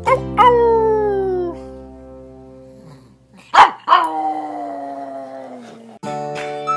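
A pug howling: two long howls that fall in pitch, then a short loud bark about three and a half seconds in and another long falling howl, over background music.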